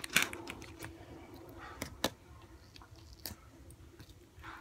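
Homemade glue-and-borax slime being squished and worked in the hands, giving scattered sticky clicks and pops. The loudest come just after the start and about two seconds in.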